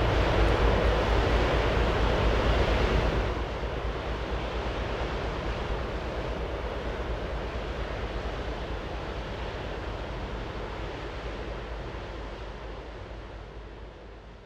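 Wind noise on the microphone over a low rumble, with no horn sounding. Louder for about the first three seconds, then dropping suddenly and fading out near the end.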